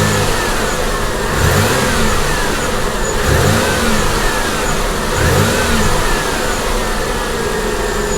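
Pontiac Grand Prix GT's V6 engine being revved from idle in repeated throttle blips, about five, each rising and falling back. To the owner, listening for knock on this 163,000-mile engine, it sounds pretty good.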